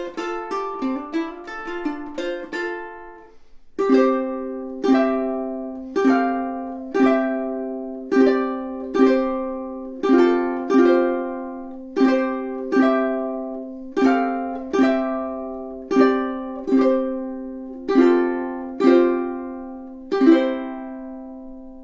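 Millar TA-260G all-solid acacia tenor ukulele, played unaccompanied: quick fingerpicked notes for the first few seconds, then strummed chords about once a second, each left to ring, the last one fading away near the end.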